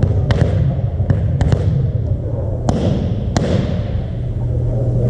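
Volleyball being struck and bouncing, a series of sharp thuds with a short hall echo; the two loudest hits come close together about three seconds in. A steady low hum runs under them.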